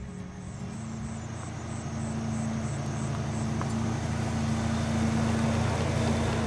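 Four-wheel-drive SUV engine running at low speed as it drives over grassy ground, growing louder as it approaches and passes close by.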